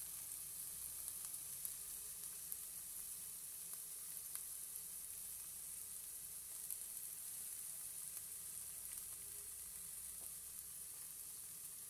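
Diced red onion sizzling in a little oil in a stainless steel pan: a steady frying hiss with a few small pops.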